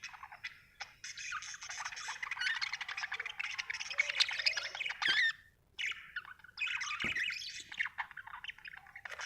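Budgerigar chirping and warbling in a rapid, continuous chatter, breaking off briefly a little past halfway and then starting again.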